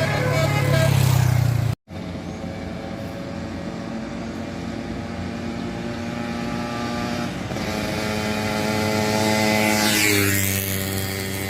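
Road vehicles running close by: a large engine rumbles under the last short notes of a musical bus horn, then the sound breaks off sharply. A steady engine hum follows, and a vehicle passes near the end with a low engine rumble.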